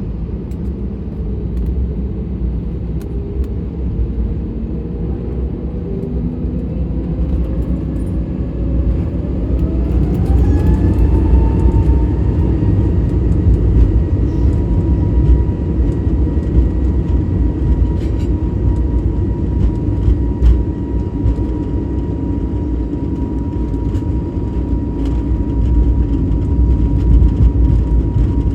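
Airbus A320neo jet engines spooling up to takeoff thrust, heard from inside the cabin: a whine that rises in pitch over about ten seconds and then holds steady, over a loud, growing rumble as the takeoff roll gets under way.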